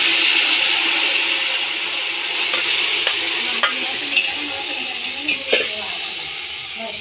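Chicken marinated in ginger-garlic-coriander paste sizzling and frying as it is tipped into hot oil in an aluminium pot, the sizzle slowly fading. A steel ladle scrapes, stirs and knocks against the pot a few times in the second half.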